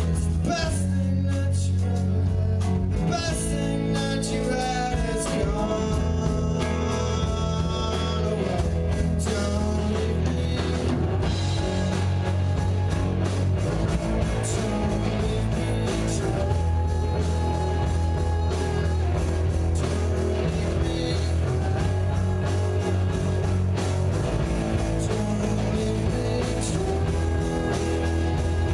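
A rock band playing live: electric guitars over a steady drum-kit beat, with a lead guitar line bending and sliding in pitch in the first several seconds.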